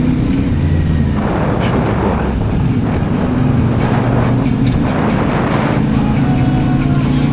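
CFMOTO 450MT adventure motorcycle's parallel-twin engine running under way, its note stepping up and down with the throttle. Repeated bursts of rough noise come and go over it.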